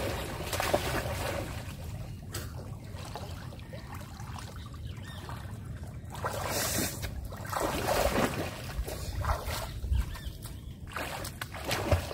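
Water splashing as people swim and wade in shallow river water, with a few louder splashes a second or two apart in the second half.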